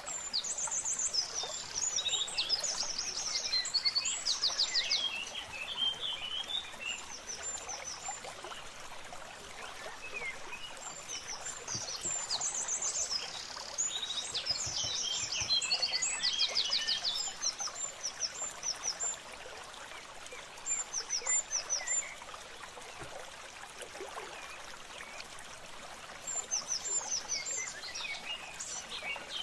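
Small birds chirping and singing in quick high trills, in bouts near the start, in the middle and again near the end, with scattered single chirps between, over a steady low hiss.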